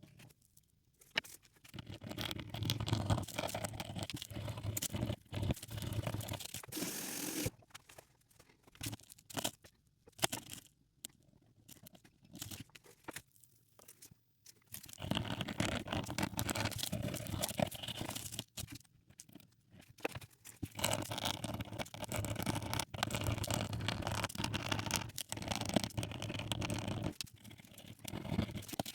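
Scrubbing and scraping on a small metal coin in long rough bursts with short pauses, and a few small knocks between them, as the coin is cleaned by hand.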